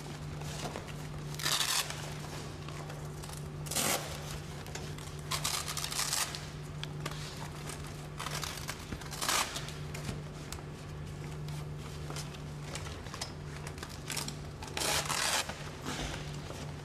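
Fabric storage bags and their straps rustling and crinkling as they are handled and fitted onto a metal trolley frame, in several short bursts over a steady low hum.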